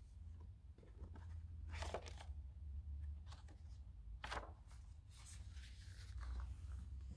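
Pages of a large hardcover picture book being turned and handled: a few short paper rustles and flaps over a low steady hum.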